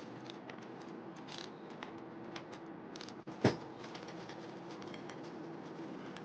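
Hand tools and metal engine parts being handled: a run of light clicks and ticks, with one sharp knock about three and a half seconds in, over a faint steady hum.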